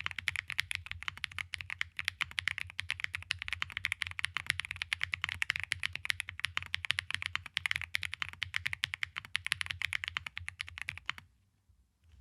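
Fast, continuous typing on an AM Compact Touch 65% mechanical keyboard, a dense stream of key clacks that stops abruptly about eleven seconds in.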